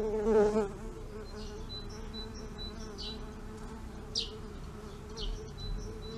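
Bumblebees buzzing in their nest: a steady wavering hum that swells into a louder buzz just after the start.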